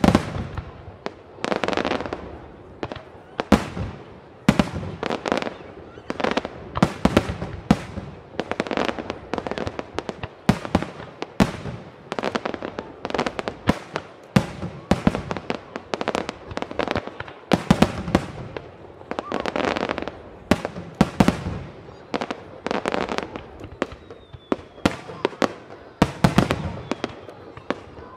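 Aerial firework shells bursting one after another at irregular intervals, sharp loud bangs about every second or so, each trailing off in an echoing rumble.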